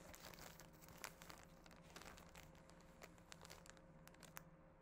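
Faint crinkling of a clear plastic zip-top bag of embroidery floss and fabric being handled, with many small scattered crackles.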